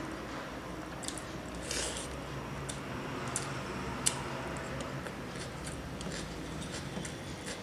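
Close-up eating sounds: chewing with soft wet mouth clicks and smacks, and fingers mixing rice on a stainless steel plate, with one sharp click about four seconds in. A faint steady low hum runs underneath.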